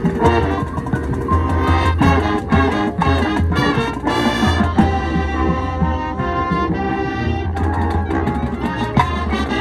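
High school marching band playing, with brass (trumpets and trombones) carrying sustained chords over drums and percussion.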